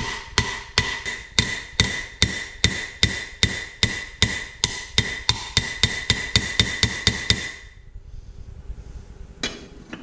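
Hammer blows on a bearing race driver, driving the outer wheel-bearing race into a Ford F150 wheel hub. The blows come in a steady series that speeds up toward the end, each with a metallic ringing note. They stop about three-quarters of the way through.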